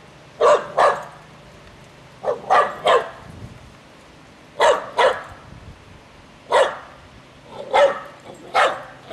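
Small white terrier-type dog barking in quick pairs and triplets, about ten sharp barks, at dandelions in the grass as if at an intruder.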